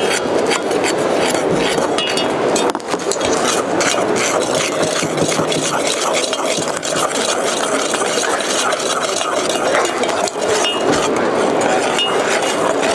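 Metal spoon stirring and clinking against a stainless steel milk pitcher, mixing powdered chai base into hot milk, over a steady background of crowd chatter.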